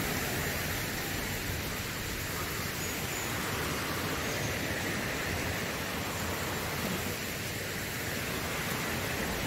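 Steady rushing of a stream, an even hiss with no breaks.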